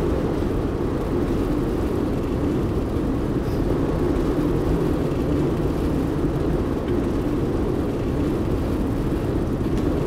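A car driving at a steady speed: an even, low engine and road rumble that doesn't change.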